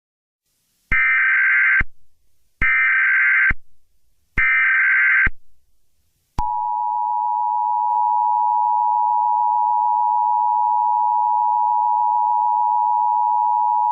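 Emergency Alert System broadcast header: three short bursts of SAME data tones about a second apart, then from about six seconds in the steady two-tone EAS attention signal.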